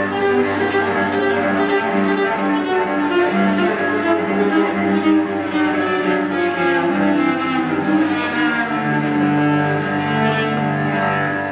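Solo cello bowed, playing a slow line of held notes, with one long low note held through the last few seconds.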